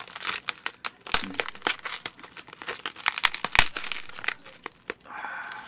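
Plastic cling wrap on a disposable takeout sauce container crinkling and crackling as it is handled and pulled open, with irregular sharp snaps.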